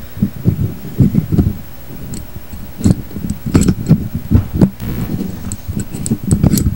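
Handling noise on the camera's own microphone as a fisheye lens attachment is fitted onto the lens: irregular low thumps and knocks from fingers and plastic on the camera body, with a few sharp clicks.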